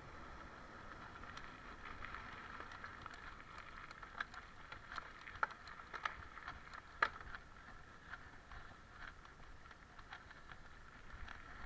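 Mountain bike rolling along a grass and dirt trail: steady tyre and ride noise with scattered sharp clicks and rattles from the bike.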